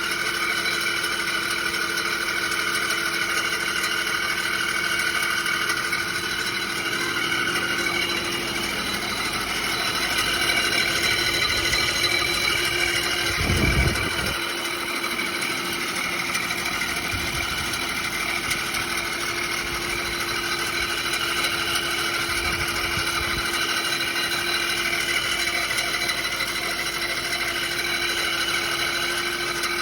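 2006 Audi A6 4.2 V8 running with a loud, steady high-pitched screeching, the source unknown to the owner: he suspects the water pump rather than the timing chain tensioner, and it seems to come from the bell housing area near the starter. A brief low rumble about halfway through.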